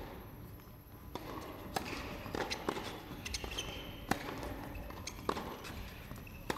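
Tennis balls bouncing on the court and being struck by rackets: a series of sharp, irregular pops, each with a short echo in the large indoor arena.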